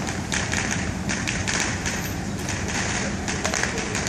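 Roadside traffic rumble with many irregular light taps and clicks.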